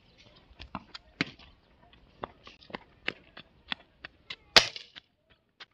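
Air rifle fired once about four and a half seconds in, a single sharp crack. Before it, a scatter of short clicks.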